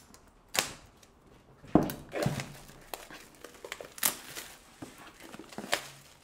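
Clear plastic shrink-wrap film being pulled off a phone box: crinkling and tearing in several sharp rips, with smaller crackles between them.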